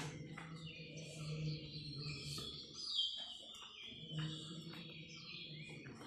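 Small birds chirping and calling, with one louder falling whistle about halfway through. Under it a low steady hum stops about a third of the way in and comes back after about four seconds.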